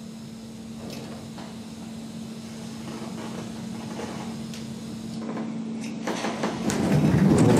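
Earthquake simulator starting up: a steady low hum with a few faint clicks, then about six seconds in the shaking begins as a rumble with rattling that quickly grows loud, the onset of a simulated magnitude 7.3 quake with strong vertical shaking.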